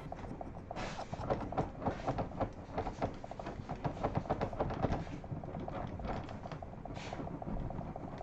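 A rapid, irregular run of light clicks and knocks, several a second, over a low steady hum.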